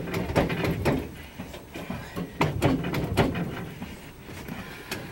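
Irregular knocks, clunks and rattles inside the aircraft over a low hum, with the engines not yet running.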